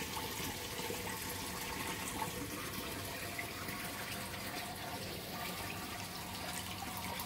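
Water running steadily as a 7,500-litre pond pump pushes water into the filter sump, which is filling.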